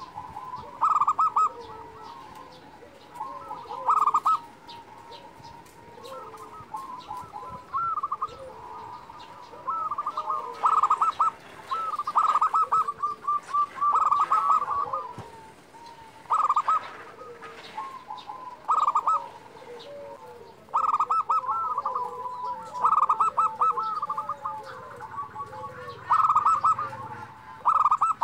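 Zebra dove (perkutut) singing: short bursts of rapid cooing notes, repeated every one to three seconds, with softer, lower coos between them.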